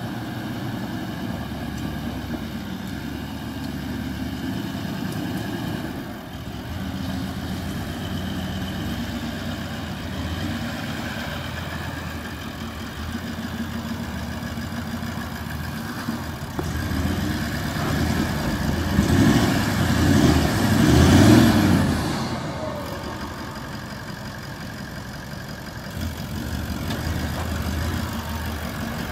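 A Toyota LandCruiser VDJ76's 4.5-litre turbo-diesel V8, breathing out through a custom twin-tip exhaust, running at low revs as the truck crawls over rough ground. It gets louder for a few seconds about two-thirds of the way through, then drops back to a steady low run.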